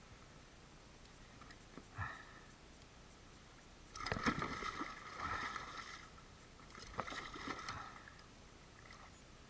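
Water splashing and sloshing against the side of a kayak as a hooked tope thrashes at the surface alongside it, in two louder bursts about four and seven seconds in.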